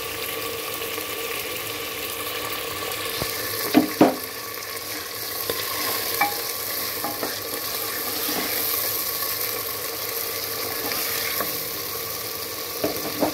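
Meat and onions sizzling in hot mustard oil in an aluminium pot while a wooden spoon stirs them. A few knocks of the spoon against the pot come through, the loudest about four seconds in and a pair near the end.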